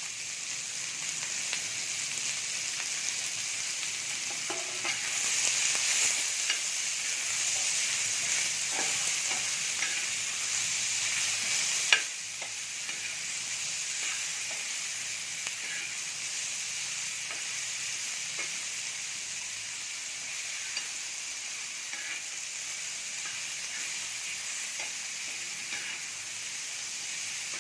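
Chopped onion frying in hot oil in a pan: a steady sizzle with scattered small clicks of stirring. The sizzle is louder for a while in the middle, then settles slightly quieter after a sharp click about twelve seconds in.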